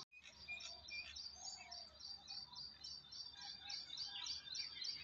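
Faint birdsong at dawn: several birds chirping, a quick run of short high chirps with scattered lower calls.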